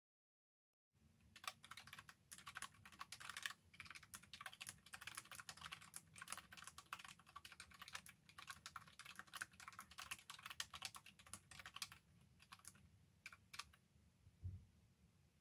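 Faint typing on a computer keyboard: quick, irregular keystrokes for about eleven seconds, then a few scattered key presses near the end, with one soft low thump.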